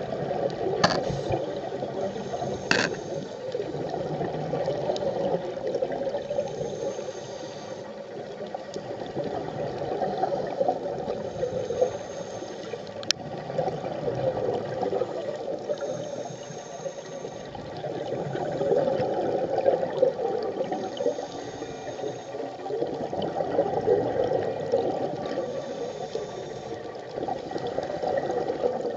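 Underwater sound of a scuba diver breathing through a regulator. Exhaled bubbles gurgle in swells every few seconds, with a faint high hiss between them and a few sharp ticks.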